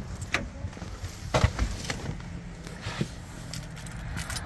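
A few clicks and knocks as a car door is opened and someone gets into the driver's seat, the loudest about a second and a half in, over a low steady background rumble; the engine is not running.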